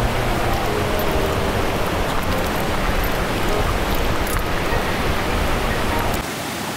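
Mountain stream's rushing water, a steady, even roar. Near the end the deep rumble drops away and it turns a little quieter.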